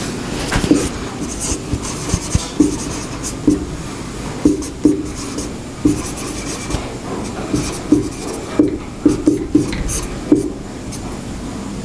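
Marker pen writing on a whiteboard: irregular short squeaks and taps as the strokes are drawn, coming thickest near the end and stopping about a second before it, over a steady background hiss.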